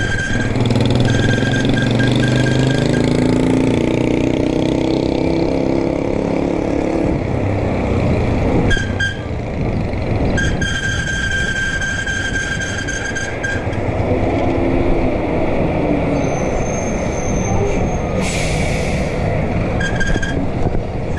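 Motor vehicle engine running and changing pitch over steady road noise, with a high thin whine that cuts in and out several times.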